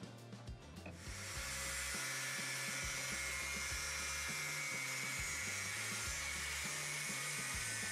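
Angle grinder cutting a shallow groove into a steel speaker housing just above the weld seam, starting about a second in and running steadily with a high whine.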